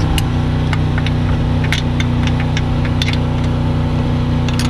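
Ratcheting wrench clicking in short, irregular runs as a steering rack mounting bolt is turned, over a steady engine hum.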